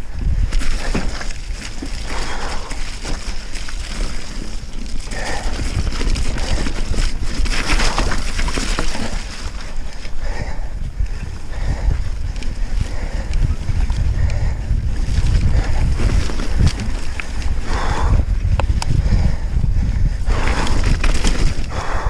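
Wind buffeting the microphone of a mountain bike's on-board camera as it rides fast down a wet, muddy singletrack, with tyre noise, rattling over rough ground and splashing through puddles.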